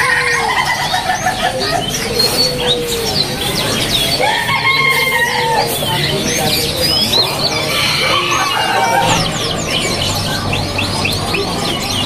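Caged zebra dove (perkutut) cooing in repeated low, trilled phrases about a second long, over many small cage birds chirping and twittering, the chirping busier near the end.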